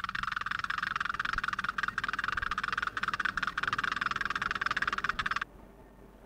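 Animated-film sound effect of a crane hook being lowered on its rope: a high, fast buzzing rattle that stops abruptly about five and a half seconds in.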